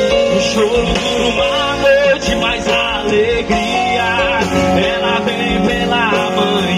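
Live gospel band playing through a PA, with drums and guitars and a male singer's voice over them.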